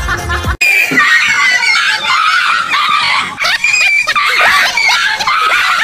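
Music and a laughing voice cut off about half a second in. A rapid, unbroken run of high-pitched shrieking cries follows, many short cries overlapping.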